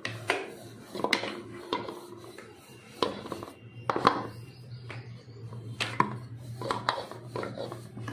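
Wooden rolling pin rolling out dough on a metal rolling board, with irregular sharp knocks and clinks, some briefly ringing, as the pin and the metal bangles on the wrist strike the metal board.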